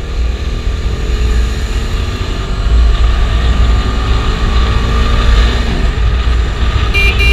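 Bajaj Dominar 250's single-cylinder engine running on the move under heavy wind rumble, its note climbing slowly and then dropping about five and a half seconds in, as at a gear change. Short vehicle horn beeps near the end.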